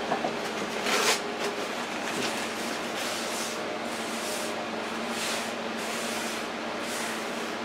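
A countertop being wiped by hand: a series of short swishing strokes, the loudest about a second in, over a steady low hum.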